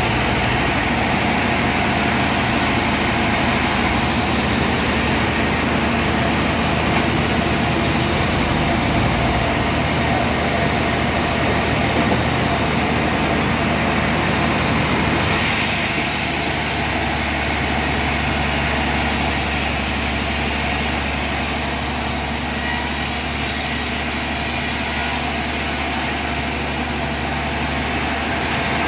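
Sawmill machinery running steadily with a continuous mechanical drone. About halfway through, the sound shifts: the low hum grows steadier and a brighter, higher-pitched hiss joins it.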